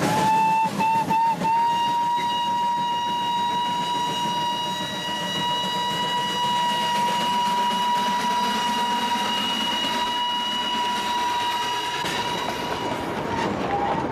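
Darjeeling Himalayan Railway steam locomotive's whistle: a few short breaks at the start, then one long steady blast of about twelve seconds that fades out near the end. The running noise of the moving train continues underneath.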